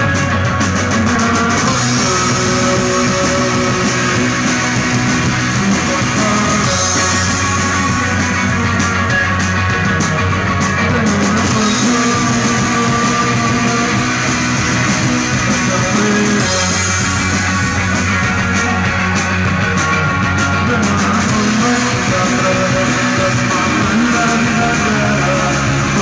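Rock band playing live and loud, electric guitar to the fore over a busy beat, with some singing.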